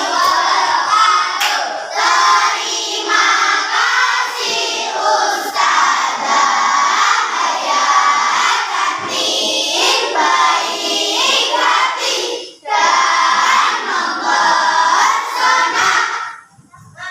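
A class of young schoolchildren singing together loudly in unison. They stop near the end.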